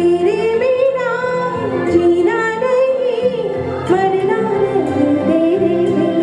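A recorded song: a woman's voice sings a melody that glides between notes over steady, held instrumental accompaniment.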